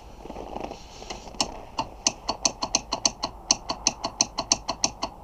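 Hand ratchet wrench clicking in a quick, even run of sharp metallic clicks, about five a second, starting about a second and a half in, as a fastener on the snowmobile's engine is turned.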